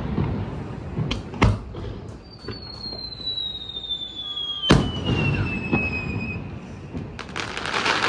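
Fireworks display: aerial shells bursting with sharp bangs about a second in, again half a second later, and loudest near the five-second mark. A high whistle glides slowly down in pitch through the middle. Near the end comes a dense crackling of glittering stars.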